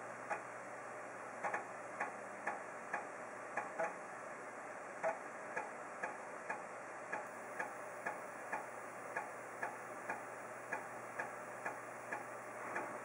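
3.5-inch 1.44 MB floppy disk drive writing about 1.4 MB of files: the head steps from track to track with a sharp click about twice a second, over a steady hum.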